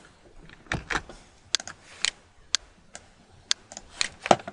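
Computer keyboard and mouse clicking: about ten separate sharp clicks at irregular intervals, the loudest near the end.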